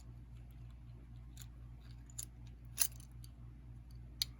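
Small scattered clicks and scrapes of metal and plastic as a die-cast toy car's body is pried off its plastic base with a small pry tool, the sharpest click a little under three seconds in, over a low steady hum.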